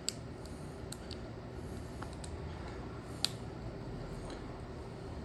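A few light, sharp metallic clicks as the parts of a car ignition lock cylinder are handled and pushed, the loudest about three seconds in, over a steady low hum.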